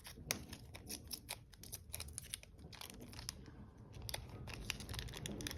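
Trading-card pack wrapper crinkling and cards being handled: a run of small, scattered clicks and rustles.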